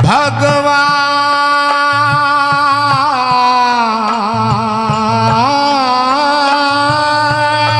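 Bhajan music between sung lines: a held melody line that slides between notes, over dholak drumming that drops out for moments and comes back.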